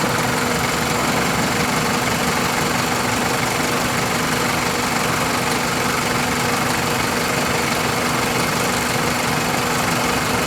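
A 2001 Toyota Corolla's four-cylinder engine idling steadily, heard up close at the engine bay.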